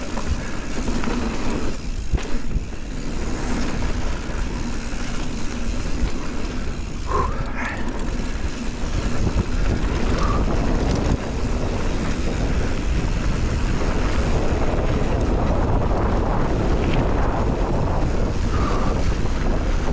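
Mountain bike ridden fast down a dirt and grass trail: steady wind buffeting on the microphone mixed with tyre noise and the rattle of the bike over rough ground.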